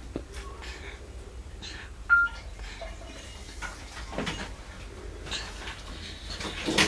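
Baby sucking at a feeding bottle: scattered soft clicks, with one brief high squeak about two seconds in.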